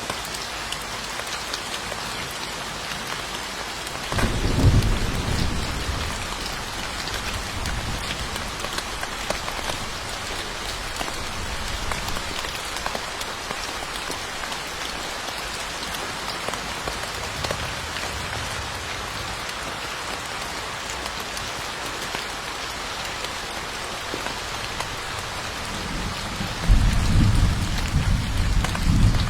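Steady rain falling, with a low roll of thunder about four seconds in and another, longer one near the end.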